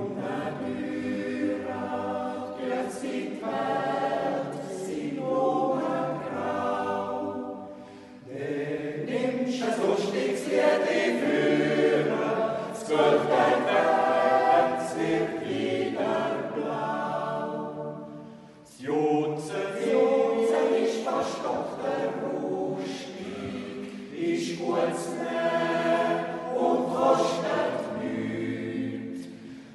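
Mixed Swiss yodel choir singing a cappella in close harmony, a wordless yodel passage in long phrases with short breaks about 8 and 18 seconds in.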